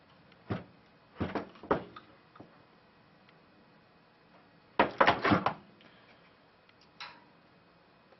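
Small metal parts and tools handled on a workbench: scattered clicks and clatters, the loudest cluster about five seconds in.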